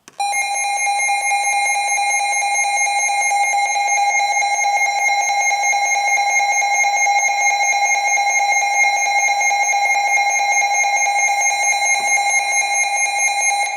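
Emergency Alert System attention signal: a loud, steady electronic alarm tone, held unbroken and cut off suddenly, announcing an emergency broadcast.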